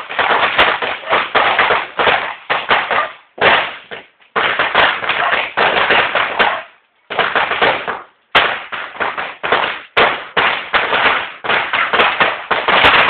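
Fireworks and firecrackers going off in a dense run of rapid crackling bangs, with brief lulls about four seconds in and again around seven to eight seconds in.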